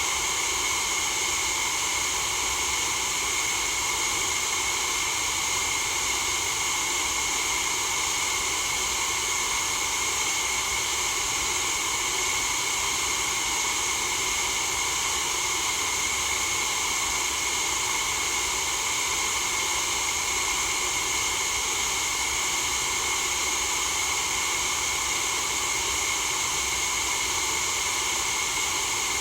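Steady, unbroken white noise for sleep, a constant hiss that is strongest in the treble.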